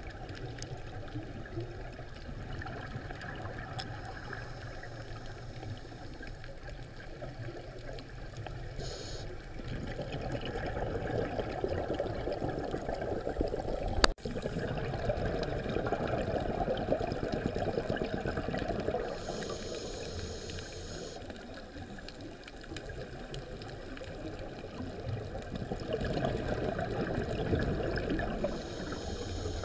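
Underwater sound recorded through a diving camera: a steady wash of water and bubble noise that swells and fades, with a few short high hisses. There is one sharp click about halfway through.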